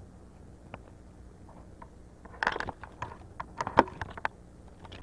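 Handling noise from fingers on a camera and its LED light right at the microphone: after a quiet stretch, irregular clicks, taps and rubbing start about two seconds in, with one sharper click near the middle.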